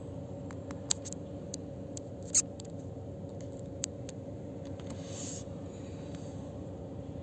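Concrete pump truck running at a distance as a steady low machine hum. Scattered small clicks come over it, with one sharper tap about two and a half seconds in and a brief hiss a couple of seconds later.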